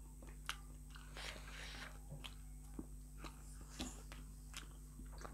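Quiet chewing and mouth sounds of people eating spicy instant noodles and pork momos, with a few short sharp clicks scattered through.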